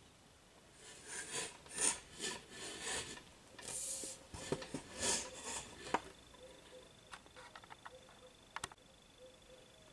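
Rubbing and scraping handling noises, a run of short strokes over about five seconds. Then a faint steady hum with a few light clicks, one sharper click near the end.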